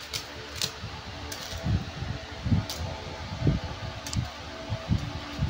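Kittens jumping and landing on a mat as they play with a dangled feather toy: soft, irregular thumps and a few sharp clicks over a steady background hum.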